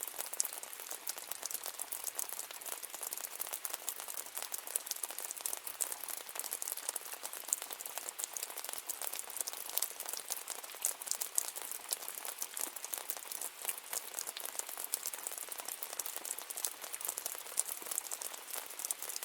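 Steady rain falling, a dense hiss of many small drops pattering.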